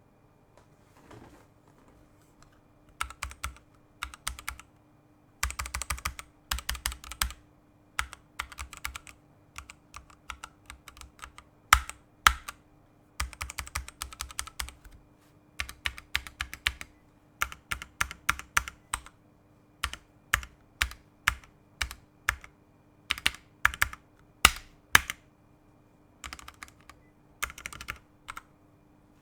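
Typing on a Ducky One 2 Mini 60% mechanical keyboard with Kailh Pro Burgundy linear switches and rubber O-ring dampers under the keycaps. Runs of quick keystrokes come with short pauses between them, and a few single key strikes stand out louder, notably near the middle and about three-quarters of the way through.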